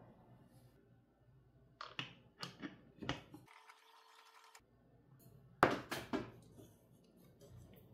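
Handling knocks and clunks of a microphone and its desk stand being fitted together and set down on a desk: a run of sharp taps about two seconds in, and the loudest clunks a little past halfway.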